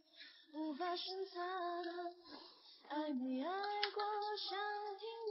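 Background pop song in Chinese: a high female voice singing long held notes across several phrases, with brief pauses between them.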